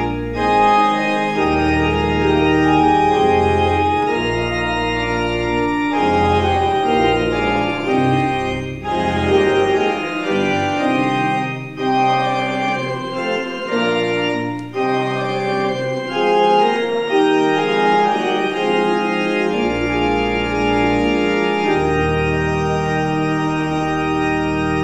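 Church organ playing a slow piece of sustained chords in short phrases separated by brief breaks, with deep bass notes that sound in some phrases and drop out in others.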